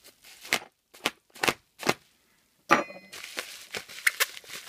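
Plastic packaging and bubble wrap being cut with a knife and pulled apart, crinkling and crackling. There are a few sharp crackles, a brief silence, then a loud crackle and steady rustling.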